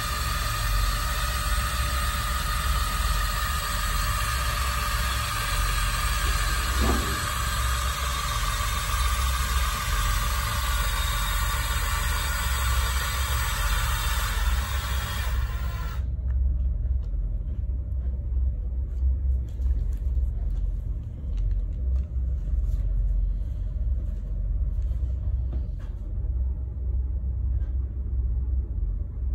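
Cordless drill turning a paddle mixing rod in a pail of thick aerogel insulation coating, its motor running steadily, then stopping suddenly about halfway through. A low rumble runs underneath throughout, with a few light knocks after the drill stops.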